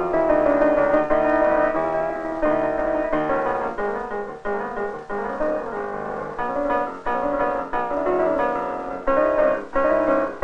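Piano music: a lively solo piano accompaniment with many quick notes and chords.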